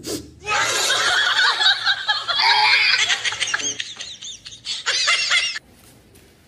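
Loud human laughter in choppy bursts, starting about half a second in and cutting off abruptly about a second before the end.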